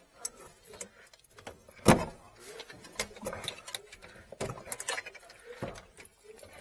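Metal tools and fittings clinking and knocking as a heating distribution manifold's pipe connections are worked on by hand: one sharp knock about two seconds in, then scattered clicks.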